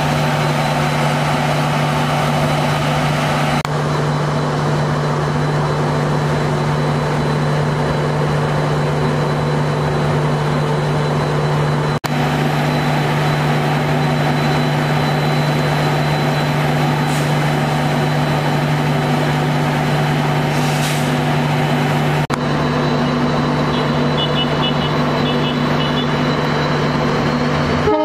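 Steady hum of a standing train's diesel engine idling, a low droning note with higher tones over it.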